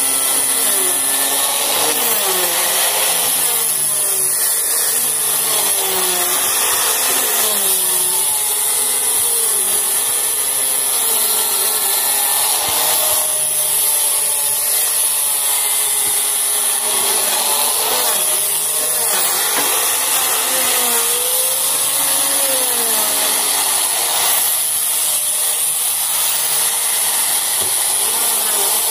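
Electric wood planer machine running continuously while planing wood, with a steady high whine and a lower note that wavers up and down.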